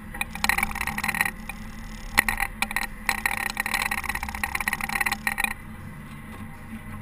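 Caterpillar TH330B telehandler running steadily, with two stretches of harsh, clattering scraping, the first brief and the second lasting about three seconds, as it works clearing snow.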